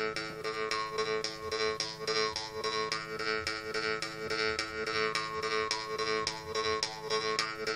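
Newly made jaw harp (vargan) being played: a steady buzzing drone plucked about four or five times a second, with bright overtones shifting up and down over it.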